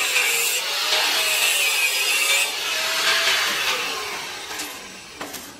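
Stick (manual arc) welding on a steel square-pipe frame: the electrode's arc crackling and hissing steadily with a faint wavering whine, dying away near the end as the weld stops.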